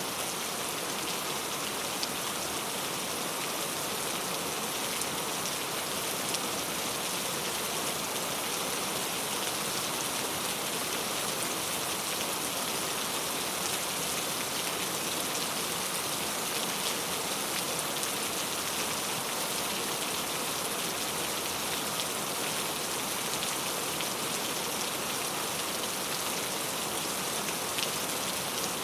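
Heavy rain falling steadily, an even hiss with many small drop ticks.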